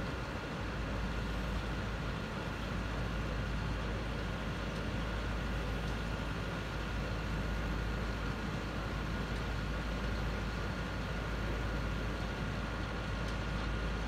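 Heavy diesel engine idling steadily, a low rumble with a thin, steady whine above it.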